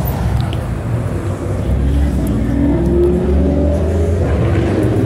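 Deep exhaust rumble of high-performance car engines running at low speed, rising a little in pitch about two to three seconds in.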